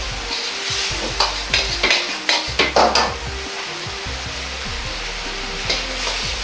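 Metal ladle scraping and clattering against a wok as a sauce thickened with potato-starch slurry is stirred through the stir-fried vegetables and meat, over a steady sizzle. The ladle strokes come in quick clusters in the first half and again near the end, with a calmer stretch of sizzling between.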